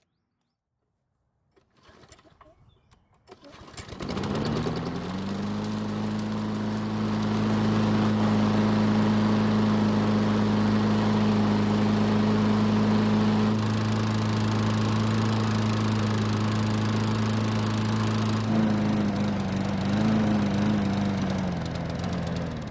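Troy-Bilt walk-behind lawn mower's small single-cylinder engine catching about four seconds in and then running steadily, having fired only after fuel was poured in to prime it, which the owner takes as a sign of a fuel-system fault, most likely the carburetor. The pitch wavers briefly near the end as the sound fades.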